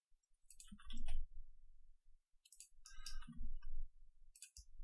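Computer mouse and keyboard clicks, in short clusters of several quick clicks about half a second in, again around the middle, and once more near the end.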